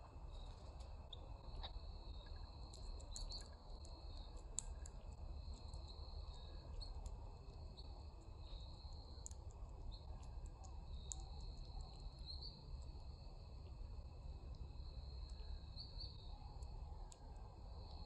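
Outdoor neighbourhood ambience at a backyard bird feeder: a steady high-pitched trill that comes and goes in stretches of a second or two, with scattered sharp high chips and ticks over a low background rumble.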